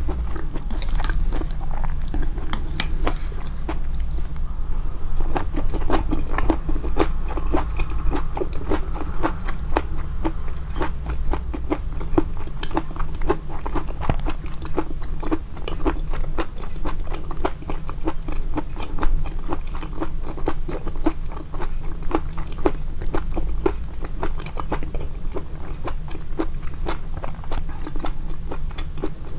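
Close-miked chewing of japchae, stir-fried glass noodles with vegetables: a steady run of quick clicking mouth sounds, several a second.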